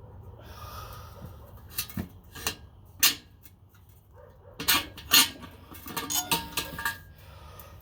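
Steel parts being handled: a series of sharp metal clanks and knocks, the loudest about five seconds in, with brief metallic ringing after them.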